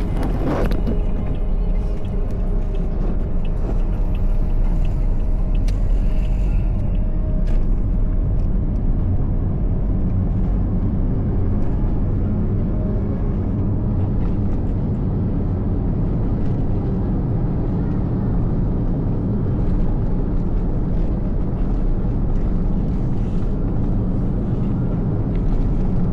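Steady road traffic on a city street: a continuous low rumble of vehicle engines and tyres with no single event standing out.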